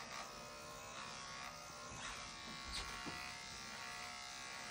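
Small handheld electric pet hair trimmer buzzing steadily as it is run through a puppy's fur.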